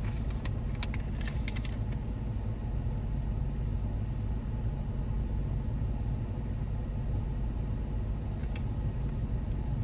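Steady low drone inside a Jeep Wrangler's cabin with the engine idling, with a few light clicks of handling in the first couple of seconds and once more near the end.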